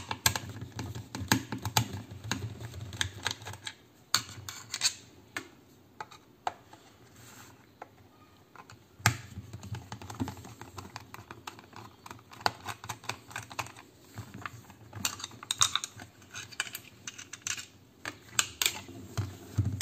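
Irregular small clicks and ticks of a screwdriver working the screws out of a corded electric hair clipper's plastic housing, with the plastic case being handled and pulled apart.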